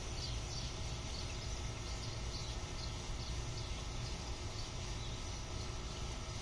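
Outdoor ambience: a steady low rumble with faint, high, short chirps repeating about twice a second, from an insect or a bird.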